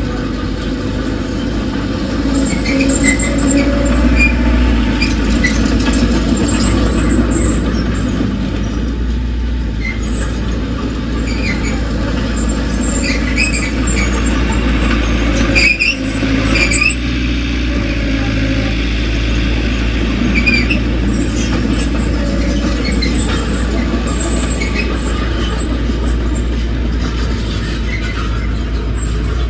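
Crawler bulldozer's diesel engine running steadily, with short high squeals from its steel tracks scattered throughout.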